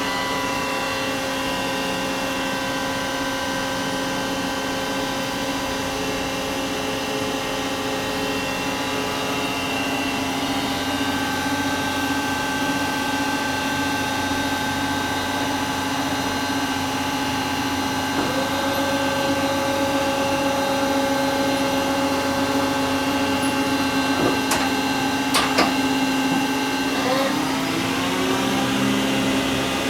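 Hwacheon Mega 95/3000 CNC lathe running through a test program: a steady mechanical whine made of several held tones. A new tone joins a bit over halfway, two sharp clicks come later, and the pitch shifts shortly after as the program moves on.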